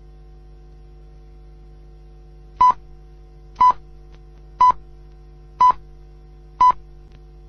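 Television time signal before the hour: five short, high beeps about one a second, starting nearly three seconds in, counting down to the top of the hour over a steady low hum.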